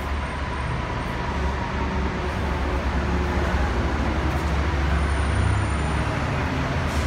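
Steady rumble of road traffic, buses and cars, on a covered roadway beneath a concrete deck, swelling a little about five seconds in.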